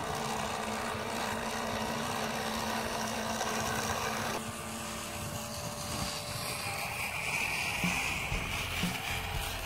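Small electric motor of a toy model tractor whirring steadily as it drives over sand, its tone changing about four and a half seconds in.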